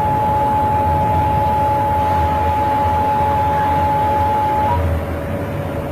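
Emergency alert attention tone: a long steady electronic tone over a loud hiss and low hum, cutting off just before the end.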